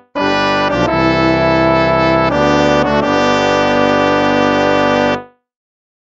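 Instrumental background music of long held chords that change a few times, then end quickly about five seconds in, leaving silence.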